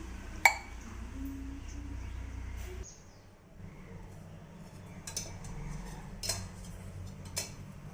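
Kitchen utensils clinking: one sharp, ringing metal clink about half a second in, then three lighter clicks spaced about a second apart near the end. A low steady hum stops about three seconds in.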